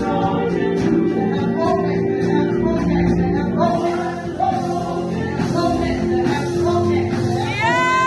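Gospel praise music: voices singing over a band, with a note held steady underneath. Just before the end a loud, bright note slides up and holds.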